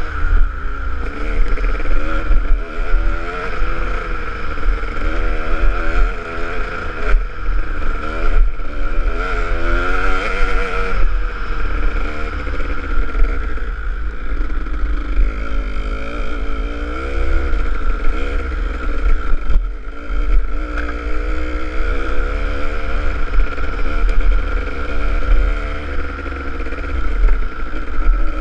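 Kawasaki KDX200's two-stroke single-cylinder engine being ridden on a dirt trail, its revs rising and falling continually with the throttle. A low wind rumble on the microphone runs under it.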